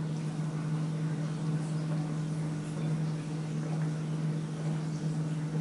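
Steady low hum from a kitchen appliance, with a faint even hiss behind it.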